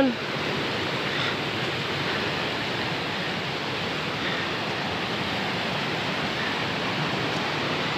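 Muddy flash-flood water rushing steadily over boulders and landslide debris.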